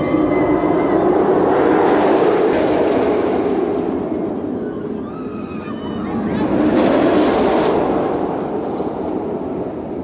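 Steel roller coaster trains running along the track with a loud rumbling rush that swells twice as trains pass, early and again about two-thirds of the way through.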